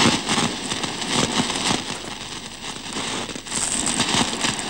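Battle noise: dense crackling with many small sharp pops over a steady rushing noise, swelling again near the end.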